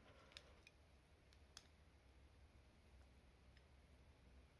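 Near silence with a few faint, light clicks as a spring-loaded push-pin of the Raspberry Pi 5 Active Cooler is pressed into the board.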